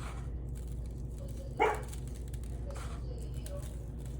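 A single short bark, like a dog's, about a second and a half in, over a steady low hum.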